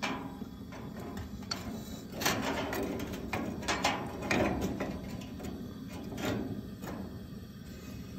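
Ceramic radiants of a Dearborn Model B gas heater scraping and clicking as they are set by hand into place in front of the burner, a run of irregular scrapes and light knocks.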